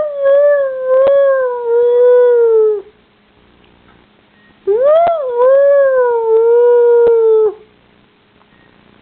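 Pet dog howling: two long howls of about three seconds each, with a pause between. Each one swoops up at the start, then holds and sags a little before breaking off.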